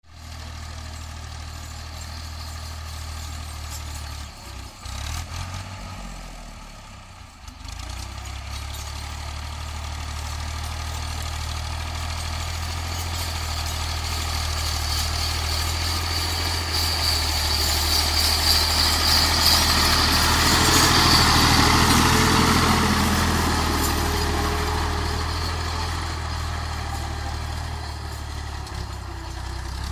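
Fiat 480 tractor's diesel engine running steadily as it pulls a cultivator through soil. It grows louder to a peak about two-thirds of the way through, then eases off.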